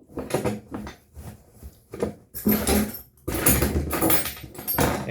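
Rummaging through hand tools in search of a half-inch wrench: irregular clattering and clinking of metal tools being moved about.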